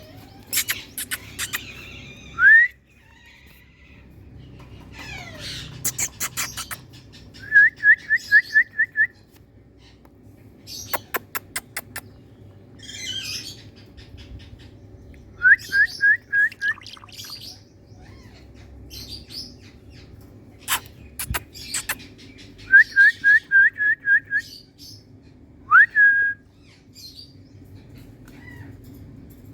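Indian ringneck parrot calling: three runs of about six short, rising whistled notes in quick succession, and single upward-sliding whistles near the start and near the end. Between the calls come several short trains of rapid sharp clicks.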